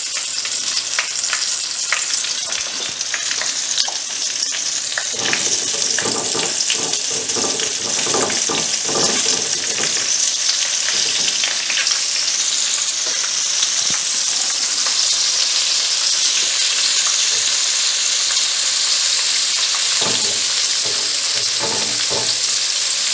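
Flour-coated chicken pieces frying in hot oil in a pan: a steady high sizzle with crackling, the crackle busiest about five to ten seconds in and again near the end.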